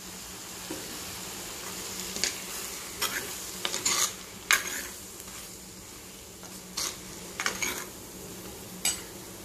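Steel spoon scraping and clinking against a kadai while stirring brinjal pieces and chilli powder, over a steady sizzle of hot oil. The scrapes come irregularly, a few at a time.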